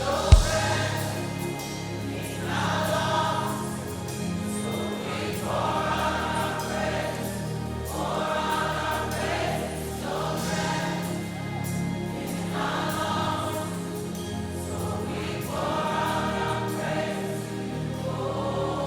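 Live gospel worship music: a choir sings long held phrases that swell about every two and a half seconds over a band's sustained keyboard and bass notes. A single sharp thump sounds just after the start.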